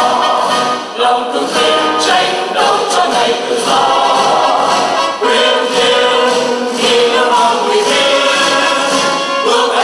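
A choir of men and women singing together, with long held notes in the second half.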